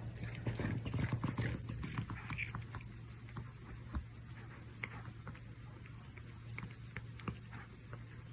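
Close-up of a cat grooming, licking and biting at its claws: a run of quick soft clicks and nibbles, dense for the first two seconds, then sparser. A steady low hum runs underneath.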